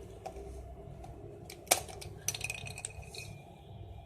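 Plastic Rubik's cube pieces clicking as a middle piece is worked out of the cube: one sharp click a bit under two seconds in, with a few lighter clicks around it.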